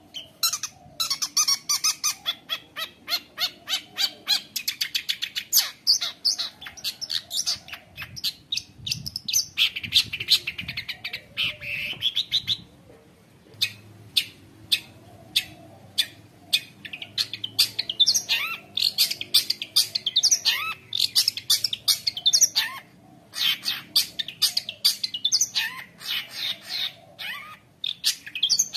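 Long-tailed shrike (cendet) singing in a rapid, nonstop run of sharp chattering notes and harsh squawks mixed with short rising whistles, with brief pauses about halfway and again later. The song is the bird's full 'isian' repertoire of mimicked calls.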